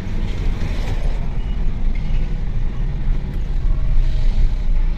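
Mercedes-Benz Vito van on the move, heard from inside the cab: a steady low engine drone and road rumble.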